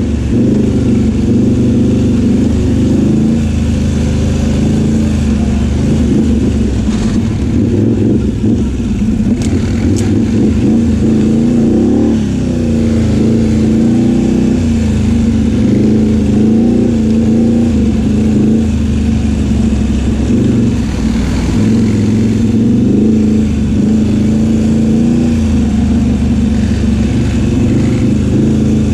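ATV engine running at trail speed, heard up close from on board the quad, its pitch rising and falling as the throttle is worked over the dirt trail.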